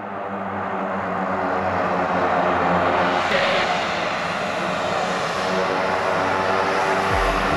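Twin-engine propeller plane's engines running on the runway. The sound grows louder over the first couple of seconds as the plane rolls up toward the apron, then holds steady.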